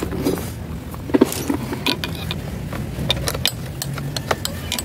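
Honda TMX 125 Alpha's single-cylinder four-stroke engine idling steadily. Over it come irregular clicks and taps as the headlight lens and chrome rim are handled and fitted with a screwdriver.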